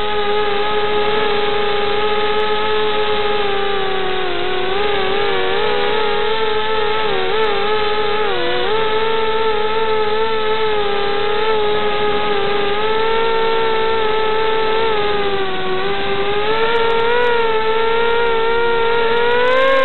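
Eachine 250 Racer quadcopter's brushless motors and propellers whining steadily in flight, heard from on board. The pitch wavers with throttle changes a few seconds in and rises briefly near the end.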